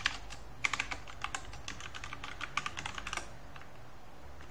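Typing on a computer keyboard: a quick run of keystrokes lasting a few seconds, then a few scattered key presses.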